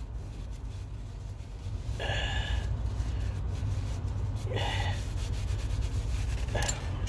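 A man breathing heavily, three audible breaths a couple of seconds apart, over a steady low rumble inside a car.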